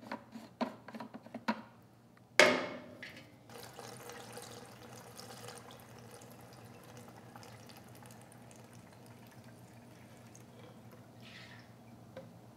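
Clicking as the generator's fuel cap is unscrewed, a sharp clunk about two and a half seconds in, then gasoline pouring from a can spout into the Honda EU2000i's fuel tank, a faint steady trickle from about three and a half seconds on.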